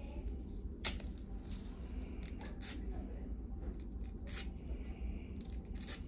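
Palm frond leaflets crackling and rustling in short, crisp bursts as they are pulled and tightened by hand while weaving, over a steady low hum.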